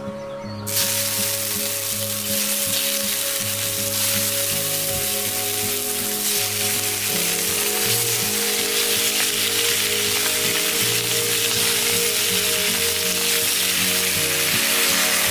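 Cubes of raw pork belly dropped into hot oil in a wok, sizzling: the frying starts suddenly under a second in and keeps going steadily as more pieces are added.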